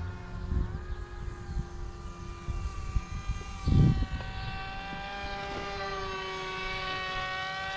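Radio-controlled model aircraft's motor and propeller droning steadily in flight, the pitch stepping up about half a second in and then drifting slowly. Wind buffets the microphone, with a strong gust a little before the middle.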